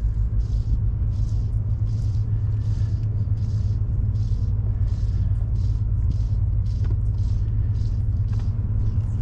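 Boat engine running at a steady speed, a continuous low rumble, with a faint swish repeating about twice a second over it.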